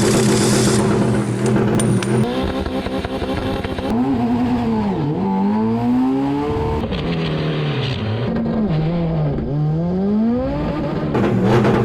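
Car engine running at a steady pitch, then twice dropping sharply in pitch and climbing back up before settling steady again.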